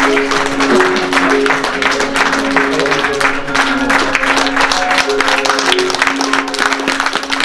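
Music with one long held low note and a few shorter higher notes over it, under the dense patter of audience applause.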